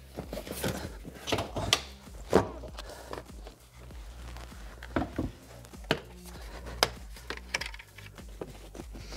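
Irregular knocks, clicks and clunks as a BMW E60's rear seat cushion is pulled free of its mounting and lifted out of the car.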